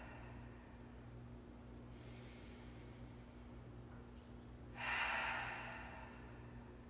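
A woman's slow, deep breaths close to the microphone: a faint breath about two seconds in, then a loud, full breath near the end that fades away. A low, steady hum sits underneath.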